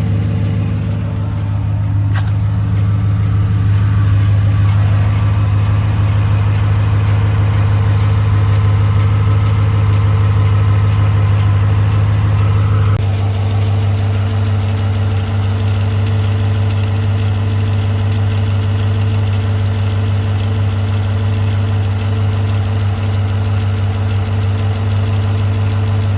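2018 Chevrolet Silverado 1500's 5.3-litre V8 idling steadily with a ticking, which the owner suspects comes from the lifters or the AFM camshaft. The engine note shifts about halfway through.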